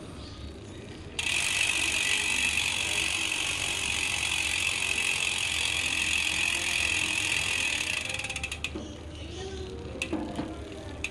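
Weapon Animal Pro rear hub freewheeling as the wheel spins: its ratchet gives a loud, fast, continuous buzz from about a second in. Near the end it breaks into separate clicks as the wheel slows. The hub has had a year of use without servicing.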